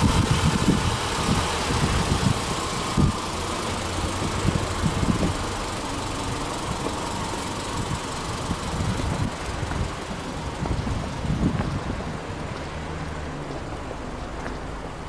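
Subaru Impreza hatchback 2.0i-S's flat-four boxer engine idling, heard from the open engine bay, its loudness easing slowly down.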